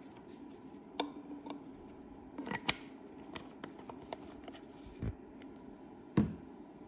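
Plastic screw cap being screwed onto a resin bottle and the bottle handled and set down: a few scattered clicks and knocks, the loudest a little before the end.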